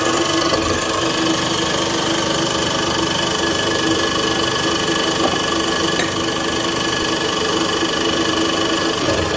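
An electric motor of workshop machinery running steadily with a constant hum and whine, while the new hub bearing is pressed home into the truck's fan hub.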